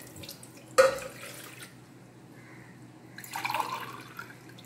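Water poured from a glass into a steel saucepan of moringa leaves, hitting with a sharp splash about a second in. A few seconds later water runs from a jug into the drinking glass, its note rising slightly as the glass fills.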